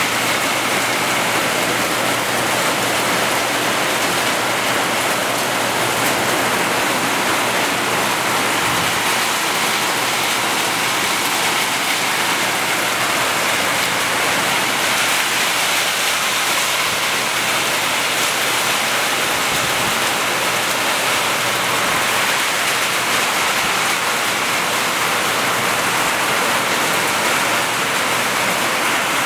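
Heavy thunderstorm rain pouring down in a steady hiss onto the corrugated metal awnings overhead, with runoff streaming off their edges.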